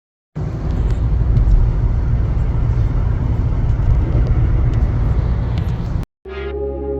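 A car running, a loud, dense rumble heaviest in the low end, that cuts off abruptly about six seconds in. Ambient music with ringing, gong-like tones starts just before the end.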